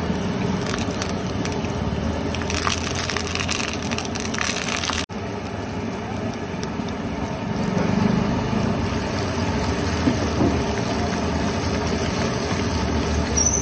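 Oil and chopped vegetables sizzling steadily in a small black wok over a high gas flame, with the burner's low rush underneath. The sound breaks off for an instant about five seconds in.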